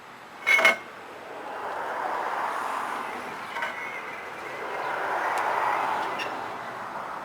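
Metal parts or hand tools clinking during axle work on a differential: a loud double clink about half a second in, then two fainter clinks later, over a rushing noise that swells and fades twice.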